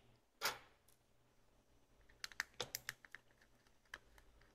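Faint small metal clicks and taps from a precision screwdriver working screws out of a compact camera's metal frame: a quick run of clicks about two seconds in and one more near the end, after a brief soft rush of noise early on.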